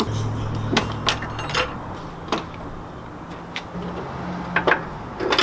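Scattered light metallic clicks and clinks of hand tools and car parts being handled during clutch hydraulics removal, over a low steady hum that fades out after about four seconds.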